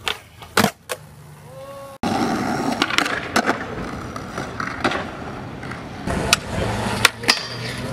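Skateboard on concrete: a few sharp clacks of a trick being popped and landed, then, from about two seconds in, wheels rolling steadily with several more clacks of the board.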